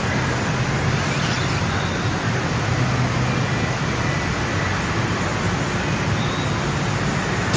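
Steady rushing of water on an indoor surf simulator, a thin sheet of pumped water pouring up the padded wave ramp, with a low rumble underneath.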